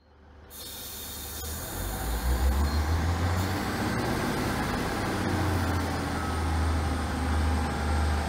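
Pair of Class 156 Sprinter diesel multiple units, their underfloor Cummins diesel engines giving a steady low rumble as the train moves slowly alongside the platform. It fades up from silence in the first second.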